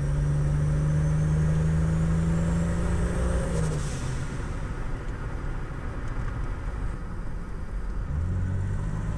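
Turbocharged Buick 3800 V6 (L36) in a Pontiac Grand Prix, heard from inside the cabin while driving under light throttle. The engine note holds steady with a faint rising whistle above it, drops away about four seconds in to leave road and tyre noise, and picks up again near the end.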